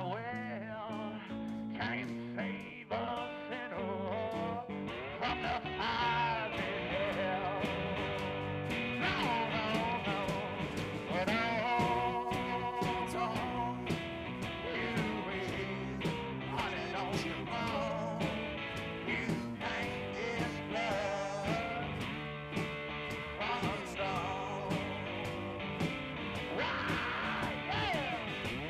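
Background blues-style song with guitar and a singing voice.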